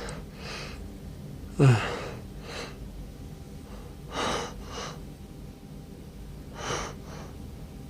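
A man's hitching gasps building up to a sneeze. The first and loudest is a voiced 'ah' that falls in pitch, about a second and a half in. Two quieter pairs of breathy gasps follow, around four and seven seconds in.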